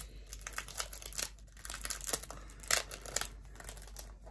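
Paper rustling and crinkling in irregular crackles as packaging is handled, with one louder crackle a little under three seconds in.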